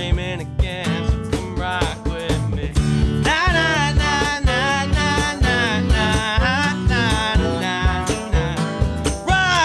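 Live band with drums, bass guitar, keys, trombone and tenor saxophone playing a jazz-inflected groove, with a steady drum beat under a lead melody that slides and bends in pitch.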